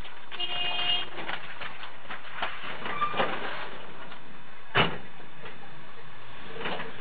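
Steady noise inside a passenger van, with scattered knocks and clatter. A short tone sounds about half a second in, and a single sharp bang comes near five seconds in.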